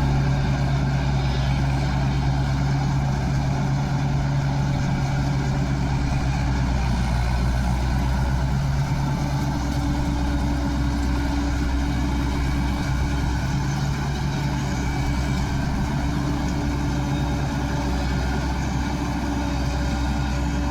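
Diesel engine of a paddy combine harvester running steadily, a continuous machine drone whose pitch shifts slightly about halfway through.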